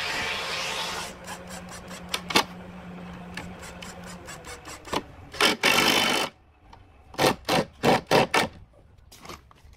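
Cordless power driver driving a screw into wood: it runs for about a second, goes quieter with a few clicks, gives a longer burst past the middle, then several short quick bursts near the end as the screw is seated.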